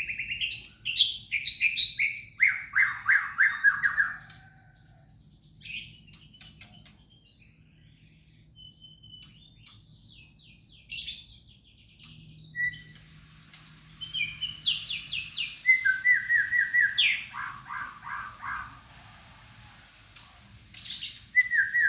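White-rumped shama (murai batu) singing. It gives bursts of rapid repeated notes that step down in pitch into rattling 'ngorok' phrases, and there is a quieter stretch of scattered short calls in the middle.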